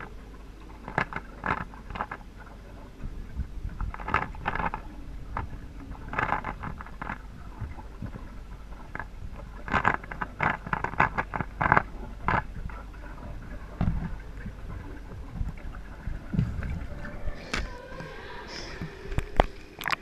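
Muffled underwater clicking in quick bursts from a Rubik's cube being twisted by hand, over a steady low hum. Near the end, water splashing and sloshing.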